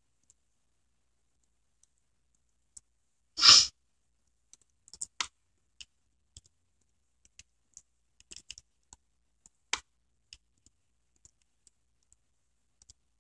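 Scattered, irregular keystrokes on a computer keyboard as an email address is typed, with a single short, loud rush of noise about three and a half seconds in.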